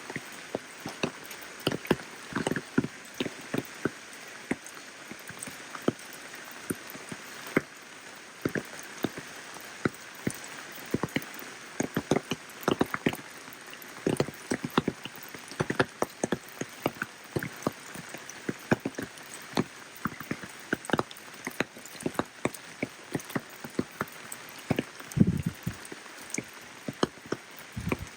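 Rain falling with a steady hiss and many close, irregular drops tapping sharply. A louder, duller knock comes near the end.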